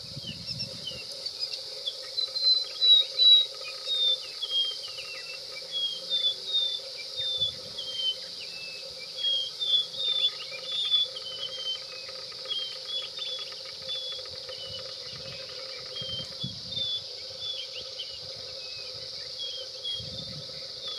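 A small bird gives a run of short, high, falling chirps, loudest and most frequent in the first half, over a steady high insect-like hiss.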